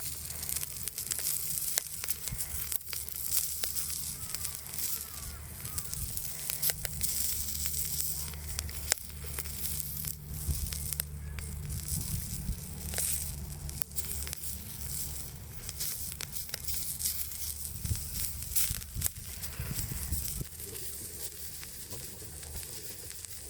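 Wood fire in a small wood stove crackling with many sharp pops, under a hiss of oil sizzling on a hot iron griddle plate being seasoned.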